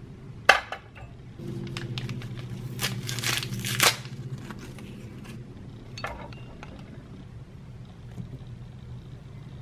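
A ceramic mug knocks down onto a Keurig brewer's drip tray, then a tea-bag wrapper is torn open and crinkled by hand, with a low steady hum underneath for a couple of seconds.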